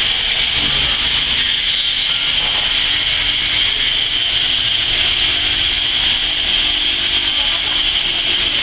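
Motorised fish-scaling machine running steadily, giving an even, unbroken hiss with no knocks or pauses.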